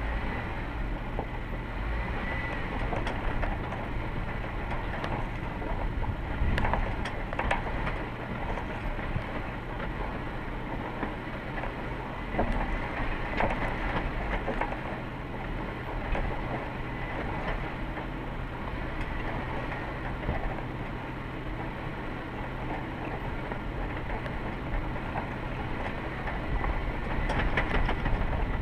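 Steady vehicle running noise with scattered knocks and rattles.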